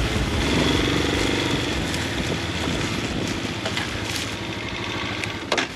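Lifan 250 dirt bike engine running as the bike rolls slowly over rough grassy ground, with a couple of sharp knocks about five and a half seconds in.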